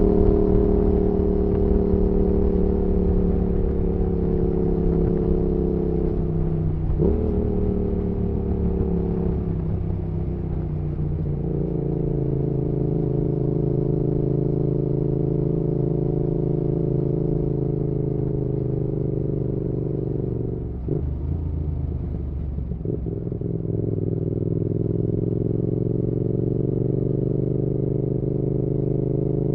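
Yamaha XSR700's parallel-twin engine through an aftermarket IXRACE MK2 exhaust, running under way. Its pitch eases and shifts, with short breaks from gear changes about seven seconds in and twice a little after twenty seconds, then rises steadily near the end as the bike accelerates.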